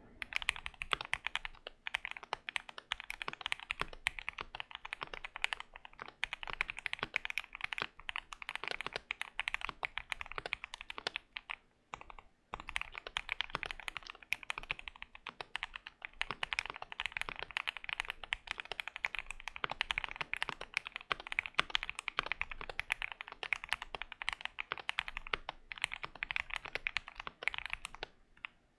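Fast, steady typing on a Keychron Q1 mechanical keyboard with an FR4 plate and Everglide Aqua Kings V3 linear switches lubed lightly with Krytox 205g0, pausing briefly a few times.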